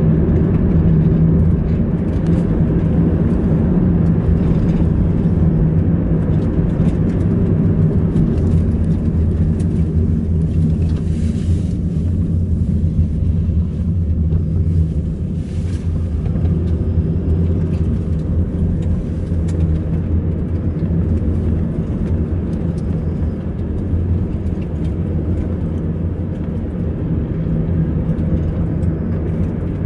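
A car driving along a road, heard from inside the cabin: a steady low engine drone with tyre and road noise.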